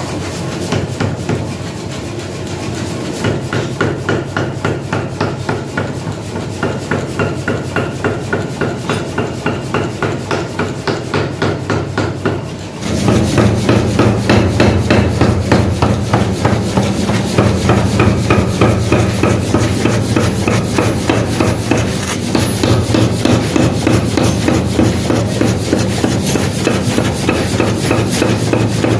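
Metal being hammered in a fast, even rhythm of about three strikes a second, as in forging axe heads; about halfway through the blows become louder and heavier.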